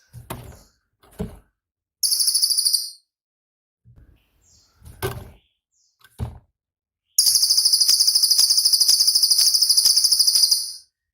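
Cililin songbird singing: a few sharp short notes, a brief high buzzy trill about two seconds in, then a long, loud, very rapid high trill (the 'tembakan' burst) lasting about three and a half seconds near the end.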